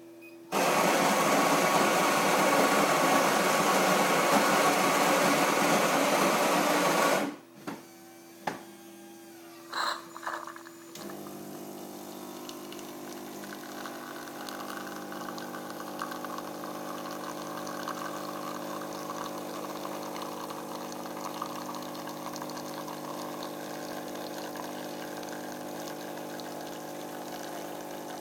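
Schaerer fully automatic coffee machine making a black coffee. Its built-in bean grinder runs loudly for about seven seconds, a few clicks and knocks follow as the brewing unit works, then the pump hums steadily with water running as the coffee brews and pours.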